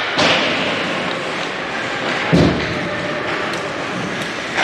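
Ice hockey play in an echoing rink: a steady wash of skate and rink noise, a sharp crack just after the start, and a heavy thud against the boards about two and a half seconds in.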